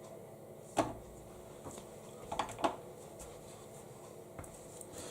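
Samsung EcoBubble washing machine between stages: a faint steady hum with a few soft knocks and clicks, one about a second in and two close together near the middle.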